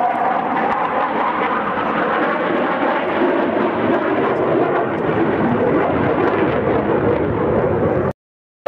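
Panavia Tornado jet roaring overhead on its twin RB199 turbofans, a steady loud rush with a tone inside it that slowly drops in pitch. The sound cuts off abruptly near the end.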